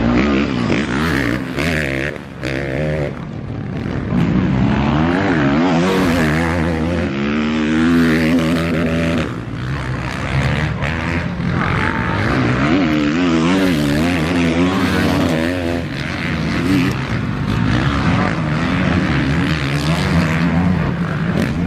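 Motocross bikes racing past on a dirt track, their engines revving up and down over and over as the riders work the throttle, with several engines overlapping.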